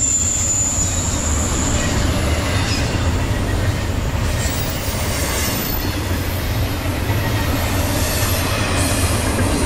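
Double-stack intermodal freight train rolling past at speed: a steady, heavy rumble of well cars on the rails, with a thin high-pitched wheel squeal that fades over the first second or so.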